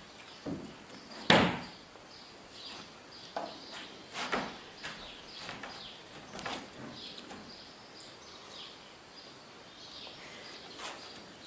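Scattered knocks and footfalls on a hall floor as a dancer moves and a man walks to a table; the loudest thump comes about a second in, with softer ones a few seconds apart. Faint high chirps run underneath.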